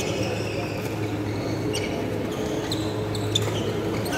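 Badminton hall ambience between rallies: a steady low hum with a few faint, scattered taps and brief squeaks, the sound of shuttlecock hits and court shoes on the wooden floor.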